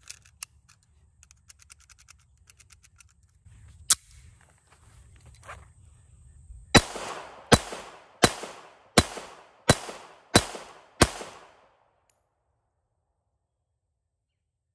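Handling clicks from an IJ70-18AH Makarov pistol, with one sharp metallic snap about four seconds in as the slide goes forward. This is followed by seven 9×18mm shots about 0.7 s apart that empty the single-stack magazine it is feeding from. Each shot rings out briefly.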